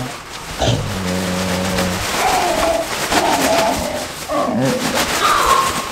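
Pretend dinosaur calls: a low held roar about half a second in, then a run of higher, wavering cries.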